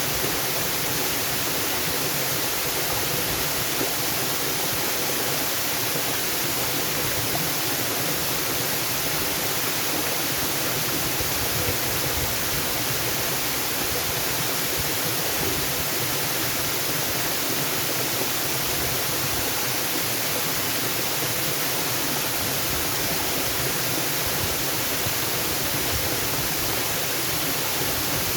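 Waterfall rushing: a steady, even hiss of falling water with no breaks or changes.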